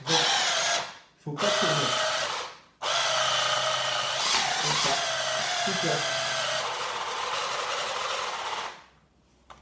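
Electric mini food chopper chopping basil leaves, its motor whining in pulses: two short bursts, then one long run of about six seconds that stops near the end.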